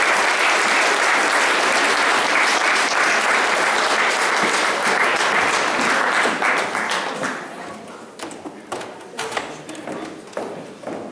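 Audience applauding: dense, steady clapping that thins out about seven seconds in to scattered single claps.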